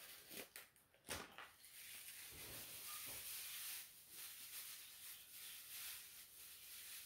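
Very quiet handling of plastic packaging: a few soft rustles and clicks in the first second or so, then only faint hiss.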